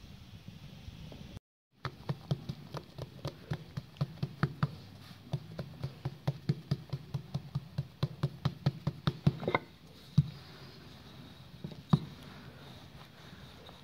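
Fingertips pressing and patting a round of lavash dough on a floured wooden board: a quick run of soft knocks, about four or five a second, for several seconds. Then two single knocks as a wooden rolling pin is put to the dough.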